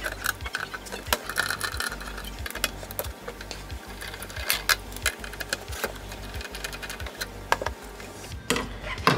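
Screwdriver turning screws out of a factory Toyota MR2 ECU's metal case, with scattered sharp clicks and small metal clinks and a few louder clicks near the end as the casing comes apart. Background music with a steady beat plays throughout.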